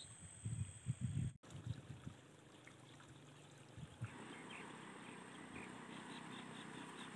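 Faint outdoor ambience by water: low wind rumble on the microphone for the first second or so, then, after an abrupt cut, a faint steady trickling of flowing water with a few light ticks.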